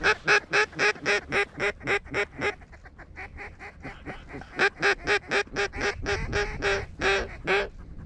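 Hen mallard quacks blown on a duck call in quick runs of about four a second. The first run is loud and tapers off, and a second loud run starts about four and a half seconds in.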